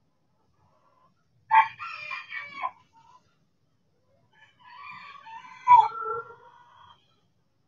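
Chickens calling twice: a drawn-out call, then a second, longer one a couple of seconds later.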